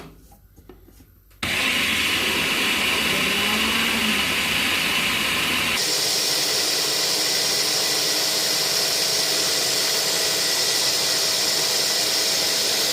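Electric kitchen blender switched on, running steadily as it purees a pumpkin, milk and cornstarch mixture. Its whine jumps higher about halfway through.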